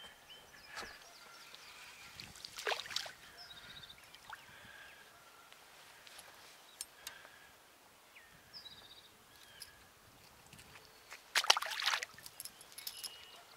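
Quiet lake ambience with scattered faint bird chirps. Water splashes briefly about three seconds in, and again, louder and longer, near the end.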